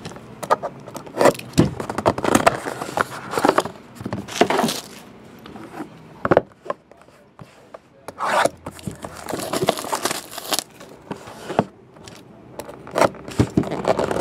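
Shrink-wrap on a cardboard trading-card box being slit with a box-cutter blade and pulled away, with fingers scraping and rubbing over the box. The sound comes in uneven stretches of scraping and rustling, with short pauses between them.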